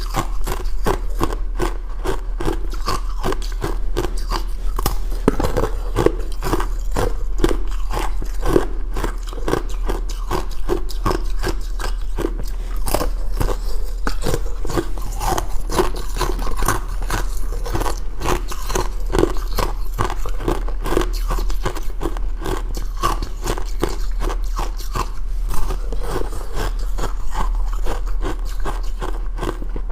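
Ice being bitten and chewed close to the microphone: continuous crisp crunching, many cracks a second, with no pause.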